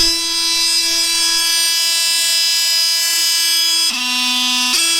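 Milwaukee M18 Fuel 2836-20 cordless oscillating multi-tool running, a steady high motor whine. About four seconds in its pitch drops briefly, then comes back up.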